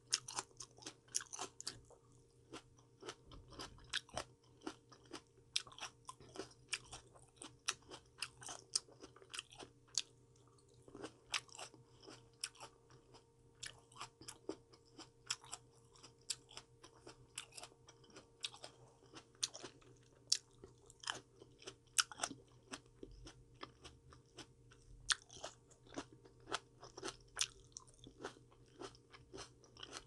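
A person chewing vegetables and fruit close to the microphone: an irregular run of small crisp crunches, several a second, over a faint steady hum.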